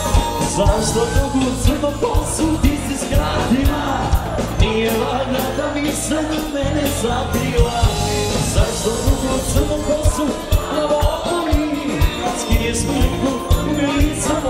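Live band playing upbeat dance music, with a lead vocal over a steady drum beat.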